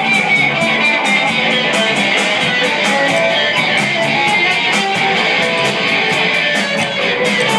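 Guitar-driven music, strummed guitar over a fast, steady drum beat.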